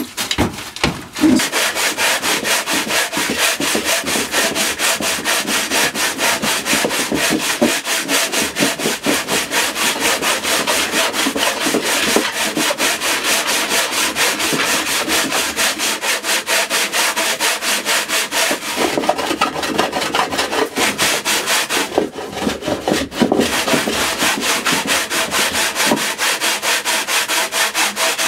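Quick, even back-and-forth strokes of a small hand tool over a spruce cello top, a steady dry rubbing, with a brief pause about three quarters of the way through.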